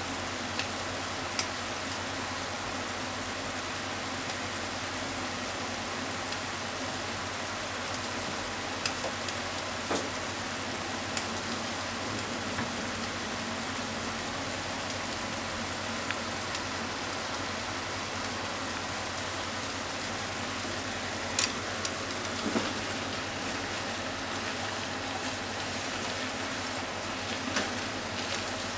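Sliced pork and onions sizzling in a frying pan in bubbling ginger-soy sauce: a steady frying hiss with scattered sharp pops and crackles.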